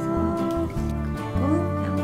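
Background music: held notes over a pulsing bass line.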